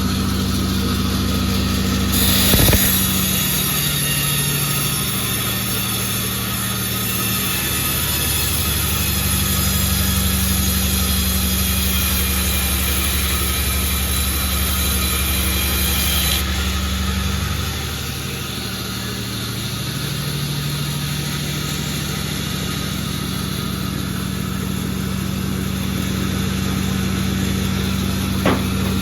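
Sawmill running steadily while the saw cuts through jackfruit wood, with a high hiss that starts about two seconds in and cuts off suddenly a little past the halfway point, when the machine's pitch also shifts. A sharp knock near the start and a click near the end.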